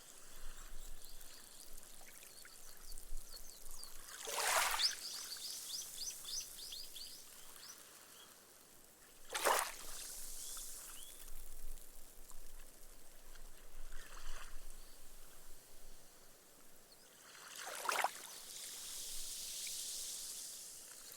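Small ripples breaking softly on a sandy beach, three swishes several seconds apart, each followed by the fizz of foam soaking into the sand and fading.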